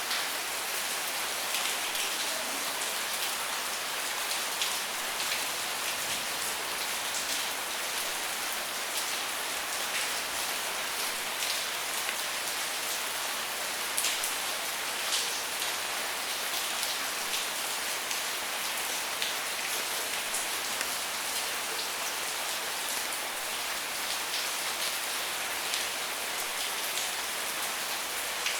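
Rain falling steadily: a dense, even hiss with many scattered sharper drop ticks.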